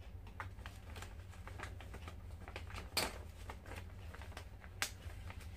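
Thin plastic shopping bag and paper receipt rustling and crinkling as they are handled, a quick run of small crackles with two sharper ones about three seconds in and near the end.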